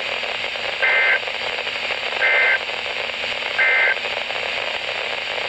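NOAA Weather Radio receiver sending the EAS end-of-message signal: three identical short two-tone SAME data bursts about 1.4 seconds apart, over steady radio static. The bursts mark the end of the warning broadcast.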